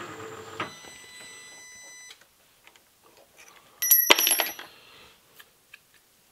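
Drilling machine's spindle motor running down and stopping, its fading whine ending about two seconds in. About four seconds in, a loud, sharp metallic clatter with bright ringing as a hand handles metal at the aluminium workpiece in the vise, followed by a few light ticks.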